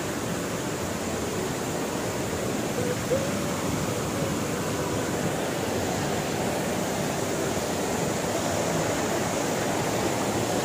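Steady rush of stream water pouring over rocks at a small waterfall, with one brief sharp sound about three seconds in.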